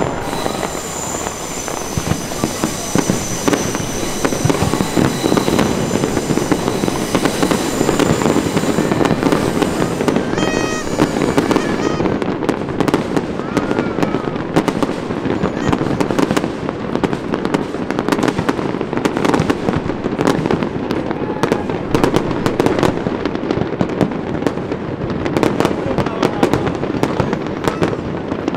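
A fireworks display going off without pause: continuous deep booms under dense crackling pops, with some high steady tones over the bangs for the first ten seconds. The sharp crackles come thicker from about twelve seconds in.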